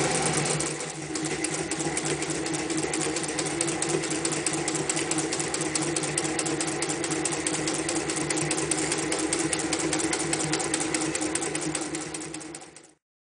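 Singer 201 electric sewing machine running at speed, stitching through four layers of sailcloth: a steady, rapid clatter of needle strokes that dips briefly about a second in, then winds down and stops near the end.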